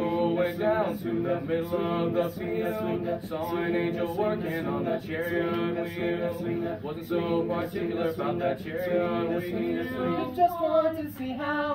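Male vocal ensemble singing a cappella in close harmony, holding chords that change every second or so.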